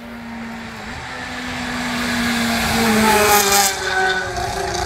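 A rally car's engine approaching at speed, growing steadily louder and revving up, loudest about three seconds in.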